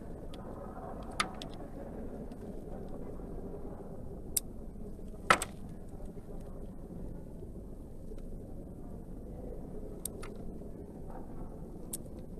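A few sharp clicks and ticks from a small blade cutting and chipping excess from a bar of soap, the loudest about five seconds in, over a steady low background hum.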